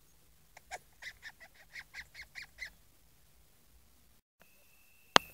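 An animal's rapid series of about ten short, hoarse, honking calls, roughly five a second, lasting a little over two seconds. Near the end comes a single sharp click, followed by a faint steady high whine.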